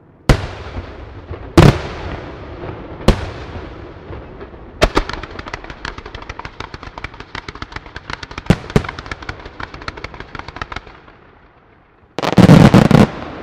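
Fireworks: four single aerial shells bang about a second and a half apart. Then comes a run of rapid popping with two louder bangs in it, and about twelve seconds in a short, very loud barrage of rapid-fire bangs.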